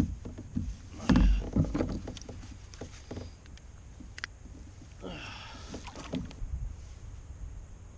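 Knocks and clatter of gear against a plastic Hobie fishing kayak's hull while a caught bass is handled and fish grips are clipped onto it. The heaviest knocks come about a second in, then a few sharp clicks, and a rustling stretch around five seconds in.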